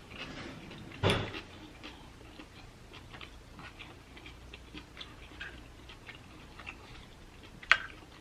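Quiet eating sounds while eating mussels: scattered small mouth clicks and smacks, with a sharper click about a second in and another near the end.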